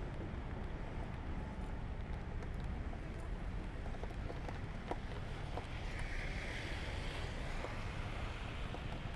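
Honda Supra GTR150 motorcycle riding in the rain: a steady low engine and wind rumble on the helmet-mounted microphone, with scattered small clicks, likely raindrops. A hiss swells for a second or so about six seconds in.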